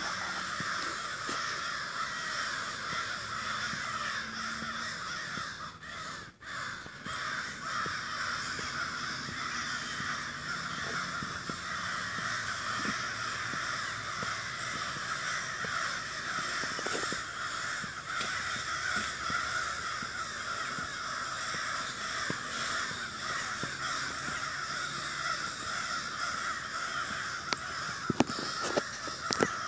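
A large flock of crows cawing all at once, a dense, continuous, very loud chorus of overlapping caws. A few sharp knocks come near the end.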